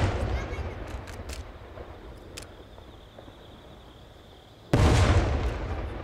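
Aerial firework shells bursting: the first boom has just gone off and rolls away slowly, a few sharp cracks follow, then a second shell bursts with a loud boom near the end and rolls away in turn.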